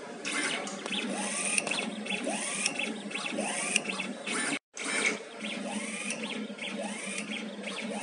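Workshop machinery whirring, with repeated rising and falling motor whines about once a second; the sound cuts out completely for a moment just past the middle.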